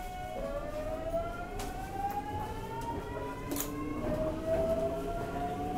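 Toshiba GTO-VVVF inverter and traction motors of a Hankyu 8040-type train, heard inside the car near the bogie: a steady whine gives way about half a second in to a whine of several tones that climbs in pitch as the train gathers speed, dropping back and climbing again about four seconds in as the inverter changes mode.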